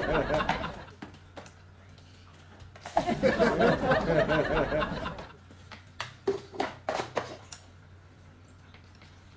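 Gleeful laughter in two bursts: one fading out just after the start, another about three seconds in lasting around two seconds. A few light clicks and knocks follow.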